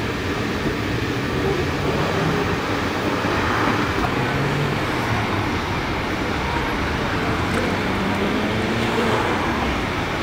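Steady rushing noise with a low hum that drifts slowly in pitch.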